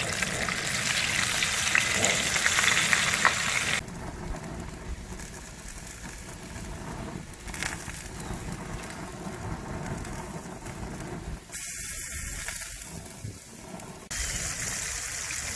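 Mahi fillets frying in a pot of hot oil: a steady crackling sizzle. It drops abruptly about four seconds in and comes back loud for a couple of seconds near the end.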